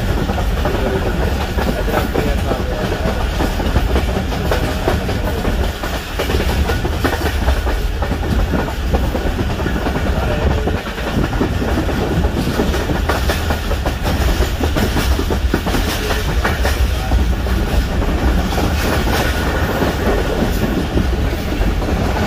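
Passenger train running at speed, heard from on board: a steady heavy rumble of the coaches with wheels clattering and clacking over the rail joints.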